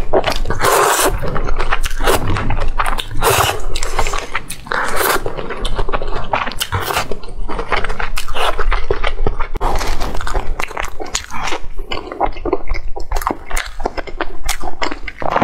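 Close-miked eating sounds: wet chewing and slurping of fried glass noodles and fried pork, with many quick sharp smacking clicks.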